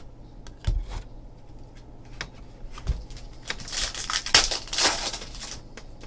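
Trading cards and their plastic sleeves being handled on a table: a few light taps and knocks, then about two seconds of rustling midway through.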